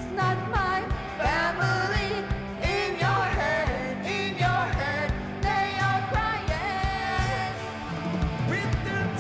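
Live rock band playing: a woman sings the lead vocal over electric guitar and a steady drum beat.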